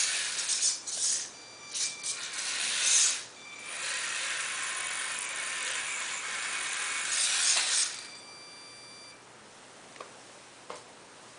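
Small electric motor and gearbox of a 1/32-scale mini 4WD RC truck whirring with a gear rattle, in short spurts at first, then a steady run of about four seconds that stops about eight seconds in. A couple of faint clicks follow near the end.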